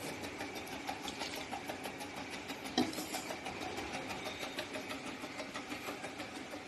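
Bottle-feeding turntable and drive of a tabletop capping machine running with a steady hum and light rapid ticking. One sharp knock comes a little under three seconds in.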